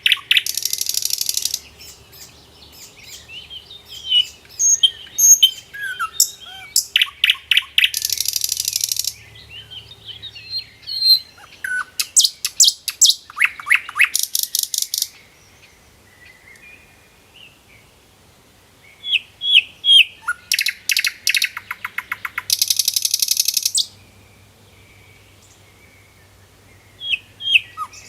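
Small songbirds chirping and singing in bouts of quick high chirps and fast, buzzy trills, each trill lasting a second or two, with short quiet spells between the bouts.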